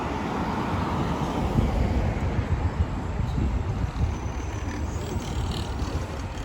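Road traffic: a steady rumble of passing vehicles, a little louder in the first second.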